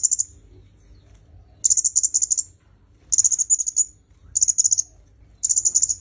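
Male red-headed flowerpecker (kemade kepala merah) calling: repeated short bursts of rapid, very high, ticking notes, about one burst every second or so.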